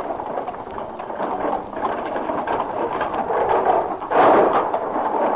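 Rain-and-storm sound effect: a steady hiss of rain, swelling louder about four seconds in.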